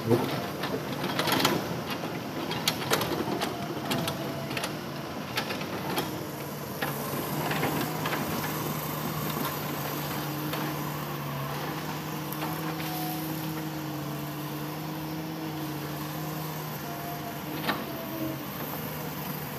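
Hitachi Zaxis 200-5G hydraulic excavator working, its diesel engine running with a steady hum. Sharp knocks and clatter over the first six seconds or so, after which the engine note runs steady while the machine swings.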